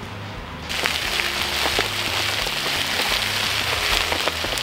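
Stir-fry vegetables sizzling and crackling on a hot discada plow-disc cooker, starting abruptly about a second in.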